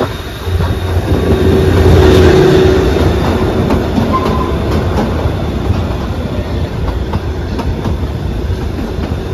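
Kalka–Shimla narrow-gauge toy train running on the rails, a steady rumble of wheels and carriages. It swells to its loudest about two seconds in, with a brief steady tone, then settles to an even level.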